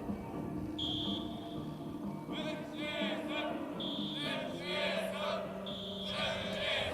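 Music with singing. A short high beeping tone sounds three times, about two seconds apart.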